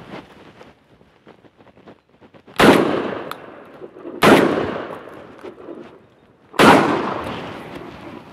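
Three shots from a shotgun, fired about a second and a half and then two seconds apart. Each one echoes off the hillside and fades over a second or more.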